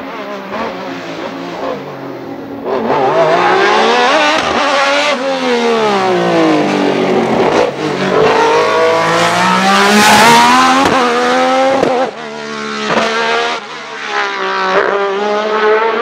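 Alfa Romeo 2.5 L V6 in the Juno Racing CH2 hillclimb prototype, run without sound restrictors, revving hard under acceleration. Its pitch climbs and falls back again and again as it shifts up through the gears. It turns loud about three seconds in, is loudest as it passes around ten seconds in, then drops off suddenly and grows fainter as it pulls away.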